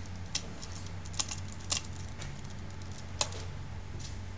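Scattered sharp clicks and taps of a screwdriver and small metal parts against an opened laptop's heatsink and chassis, four or five in all, over a steady low hum.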